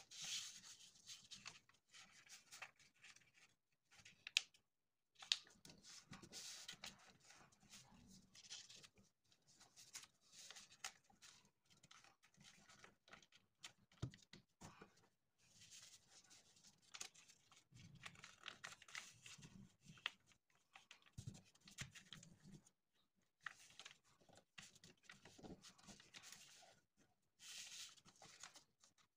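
Faint rustling and creasing of a sheet of thin orange craft paper being folded by hand into an origami animal head, in short stop-start bursts with a few sharp crisp clicks as folds are pressed down.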